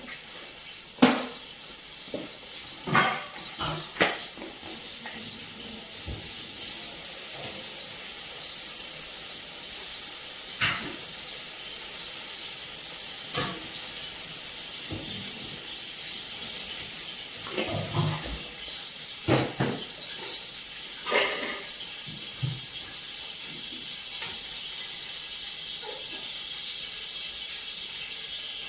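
Whole spices sizzling steadily in hot oil in a cooking pot, with a spoon knocking and scraping against the pot now and then.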